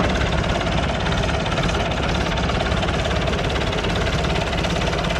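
Massey Ferguson 165 tractor's four-cylinder engine running steadily with an even, rapid beat.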